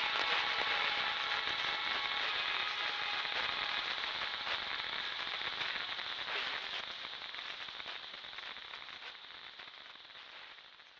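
Crackling, hissing noise full of small clicks, like rain or old-record static, closing out a rock track and fading steadily away to silence.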